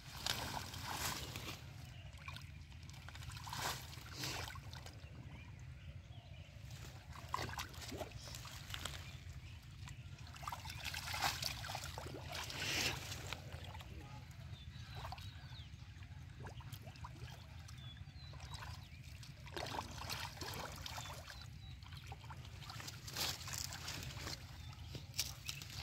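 Hands sloshing and splashing in shallow muddy water among water hyacinth, in irregular bursts over a steady low hum. A cluster of louder splashes comes about halfway through, as a catfish is grabbed from the mud.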